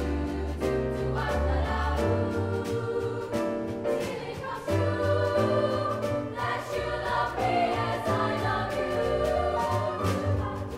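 Girls' chamber choir singing an upbeat piece in parts, with a double bass playing a low line beneath the voices.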